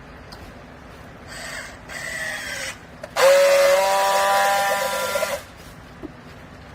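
Hydraulic rag baler whining as it works: a brief, slightly falling whine, then a louder steady whine for about two seconds that cuts off suddenly.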